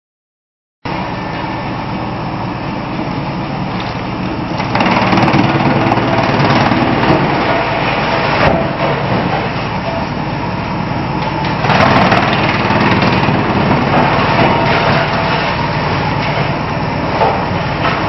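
A 55 kW disc wood chipper running steadily under load, with louder, harsher stretches from about five to eight seconds in and again around twelve seconds as wood scraps are fed in and chipped.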